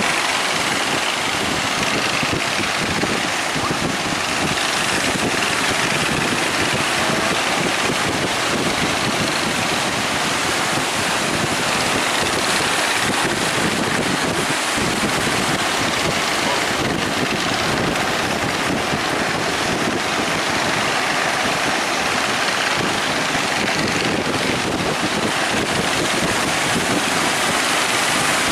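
Steady noise of surf breaking, with wind buffeting the microphone.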